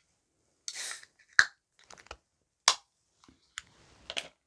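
A can of Pepsi Zero Sugar Mango being cracked open by its pull tab: a brief hiss and sharp clicks of the tab. The loudest click comes about a second and a half in, another near the middle, and a few smaller ones near the end.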